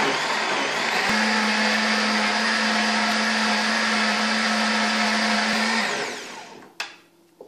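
Countertop blender running steadily at full speed, blending soaked dates and water into a frothy drink. It switches off about six seconds in, and the motor winds down to a stop.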